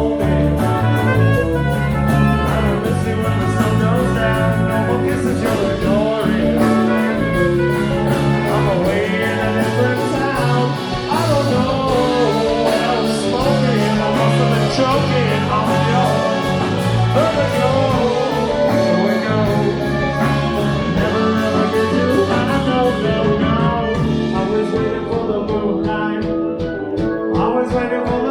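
A live rock band playing a song, with singing over electric guitar, bass and a steady drum beat.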